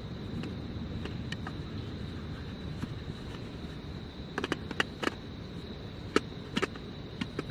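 Wood campfire burning with a steady low rumble, breaking into a run of sharp crackles and pops in the second half. A steady, thin, high insect trill runs behind it.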